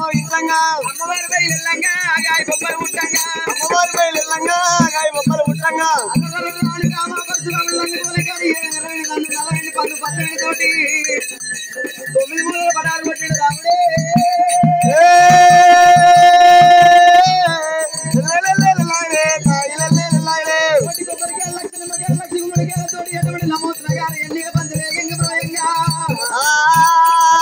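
Male voice singing an Oggu Katha folk narrative over a steady drum beat and jingling rattle or cymbals. A long held note about halfway through is the loudest part, and another rising held note comes near the end.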